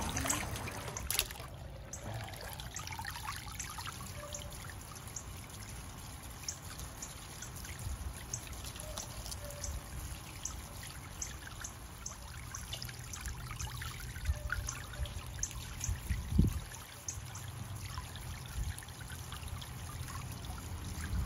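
Small garden fountain pump's nozzle sending water up and falling back into its plastic basin: a steady splashing trickle dotted with little drips. There is a sharp knock about a second in and a low thump about three-quarters of the way through.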